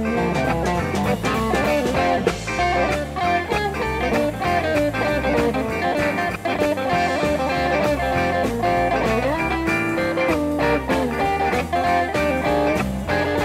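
Blues band playing live, with an electric guitar taking the lead over drums keeping a steady beat; there is no singing.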